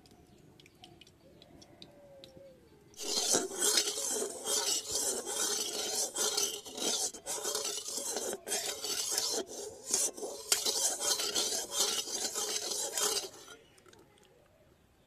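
Metal spatula scraping and stirring around the inside of a metal wok (kadai) that holds a little cooking oil: a loud, rapid run of rasping strokes that starts about three seconds in and stops near the end.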